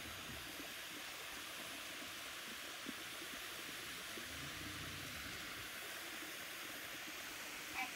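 Steady, even hiss of background noise, with a short chirp-like call right at the end.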